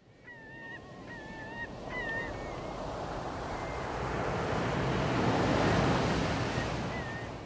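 Wind and sea noise that swells and then eases, with a few short honking bird calls in the first couple of seconds and one more near the end.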